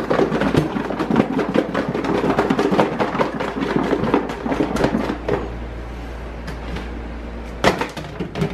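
Red plastic food container and lid clattering and rattling as they are wrestled together at a steel sink, with many quick clicks and knocks. About five seconds in it settles to quieter handling, with one sharp snap near the end.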